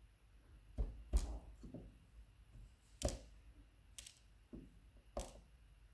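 Light clicks and taps of tweezers and small lock pins on a work surface while the pins are taken out of a lock cylinder. About seven separate ticks come unevenly, the loudest about a second in.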